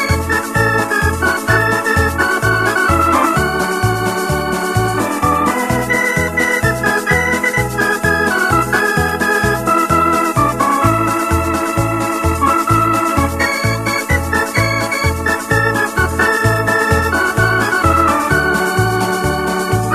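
Electronic organ playing an instrumental tune: held melody notes over a steady bass beat of about two notes a second.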